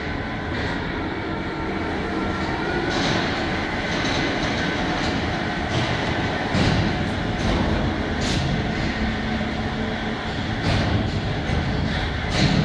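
Automated transport cart running through a concrete service tunnel: a steady rolling rumble with a faint motor whine and scattered sharp clicks.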